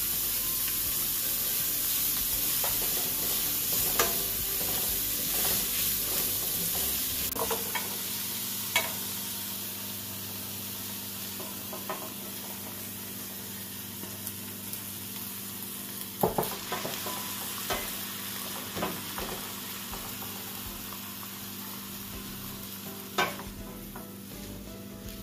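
Chopped vegetables and garlic sizzling in hot olive oil in a non-stick frying pan, stirred with a spatula that clicks against the pan now and then. The sizzle dies down partway through as chopped callaloo leaves are piled in and tossed.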